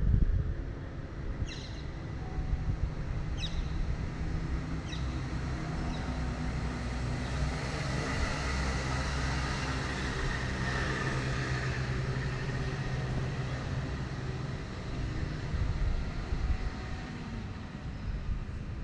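An engine running with a steady low hum that swells through the middle and then fades, as it would when it passes by. There are three short high chirps early on, and a brief bump at the very start.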